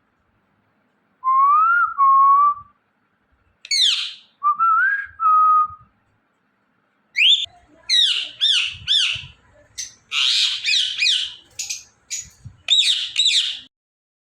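Indian ringneck parrot calling: a few clear whistles that slide up in pitch, then from about halfway a quick run of sharp, harsh chirps and squawks.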